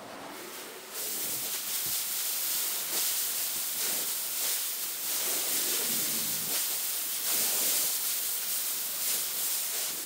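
Water jet spraying onto a carpet during washing: a loud, steady hiss that starts sharply about a second in and cuts off suddenly at the end.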